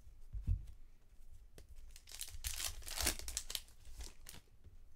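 Baseball trading cards being flipped through by hand, cards sliding and rustling against each other. The rustling is loudest for about two seconds in the middle, with a few light clicks and a soft bump near the start.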